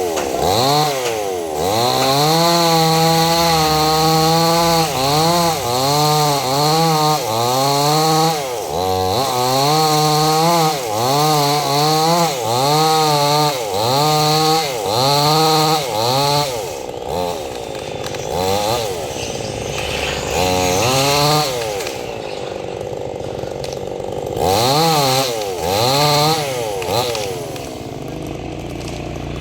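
Two-stroke chainsaw revved up and down in rapid pulses, each held high for under a second, then settling to a lower idle with a few more short revs about two-thirds of the way in and at the end.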